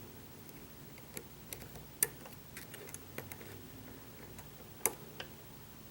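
Light metallic clicks and scrapes of a Peterson hook pick working the pins inside a pin-tumbler challenge lock held under a pry-bar tension wrench, with two sharper clicks about two seconds in and near the end. One click sounded too solid: the sign of a pin being overset.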